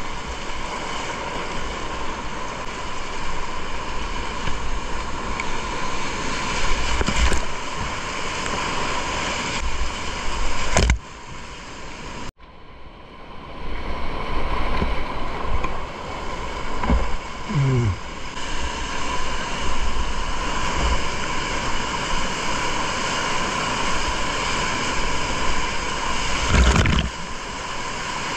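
Rushing whitewater and waves splashing over a kayak's bow, picked up close to the water. The sound drops away suddenly about eleven seconds in and builds back within a couple of seconds.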